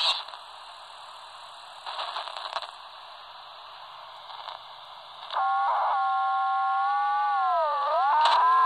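Albrecht AE2990 AFS handheld CB radio receiving on the 27 MHz band in sideband mode: receiver hiss with a brief garbled burst, then about five seconds in a loud, steady, buzzy tone cuts in. Near the end the tone dips down in pitch and climbs back up.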